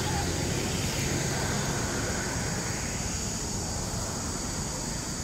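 Steady outdoor ambient noise: a low rumble under an even, high hiss, with no distinct event standing out.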